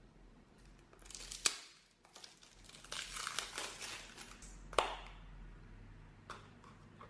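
Plastic crinkling and rustling in bursts, like packaging being handled, with two sharp clicks, one about a second and a half in and one near the five-second mark.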